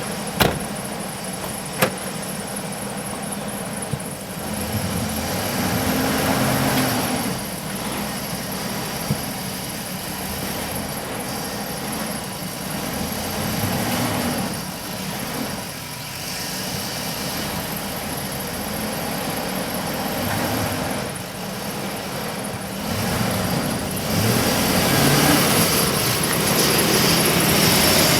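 Chevy Express 1500 AWD van's engine running and revving up and back down in repeated surges as the van works its way out of snow, loudest near the end. Two sharp knocks come in the first two seconds.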